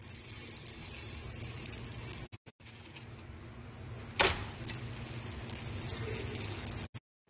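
Steady low kitchen hum and light hiss around a stuffed flatbread cooking on a hot saj griddle over a gas burner, breaking off briefly twice. One sharp knock about four seconds in as the flatbread is flipped onto the griddle.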